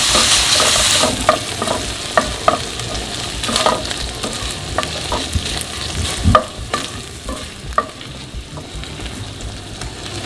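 Uncured turkey bacon and garlic sizzling in olive oil in a frying pan while a utensil stirs it, clicking and scraping against the pan a dozen or so times. The sizzle is loudest for the first second, then settles lower.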